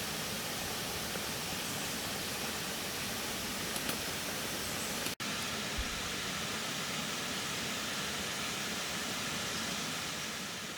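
Steady outdoor rushing noise with no clear pitch, such as running water or wind. It drops out for an instant about five seconds in.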